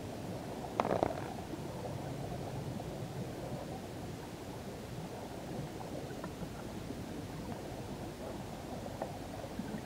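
Steady, muffled underwater rumble of sea water, with one sharp knock about a second in.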